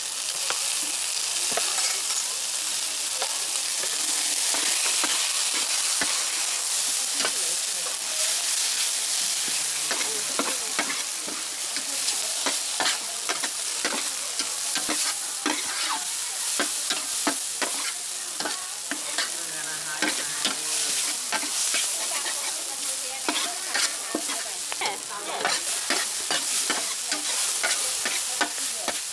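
Noodles, bean sprouts and chives sizzling in a large wok while a metal spatula stirs and tosses them, the spatula scraping and clacking against the pan again and again over a steady frying hiss.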